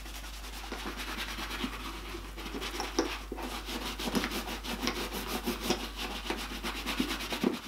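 Soft shoe brush buffing a dubbin-waxed leather hiking boot, in quick repeated back-and-forth strokes over the leather that take off the excess dubbin.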